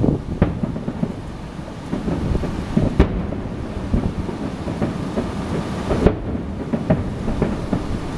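Fireworks bursting with deep booms, several in turn, the sharpest about three and six seconds in, under constant rumbling wind buffeting on the microphone.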